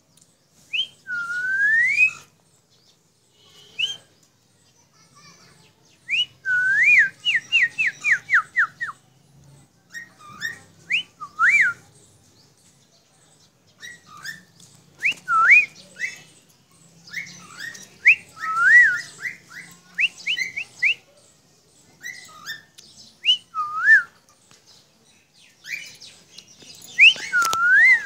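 Cockatiel whistling: clear swooping notes that dip and then rise, mixed with runs of quick short rising notes, coming in bursts with short pauses between them.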